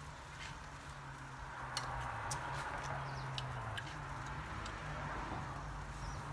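Scattered light clicks and taps of metal tongs and utensils against a charcoal grill grate and dishes, irregular, over a steady low hum.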